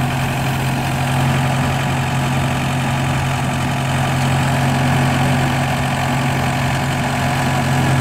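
Vermeer V120 trencher tractor's engine running steadily with a constant low hum.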